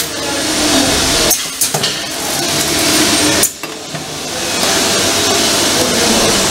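Manual tray sealing and cutting machine running its cycle: a loud, steady hiss with a few light metal clatters. It drops away briefly twice, then settles into an even hiss.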